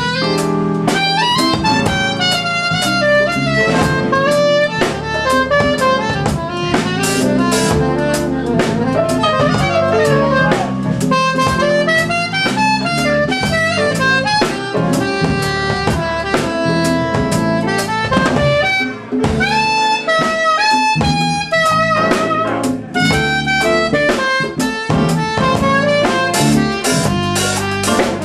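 Soprano saxophone soloing in a live jazz band, fast runs of notes rising and falling, over a drum kit played with sticks on the cymbals.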